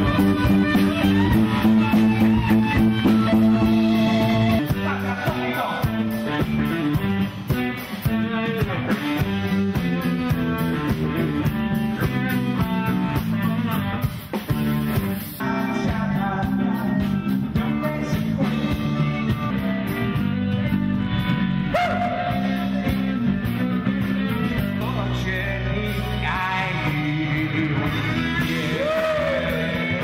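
Rock band playing with electric guitar, bass and drums, and a singer.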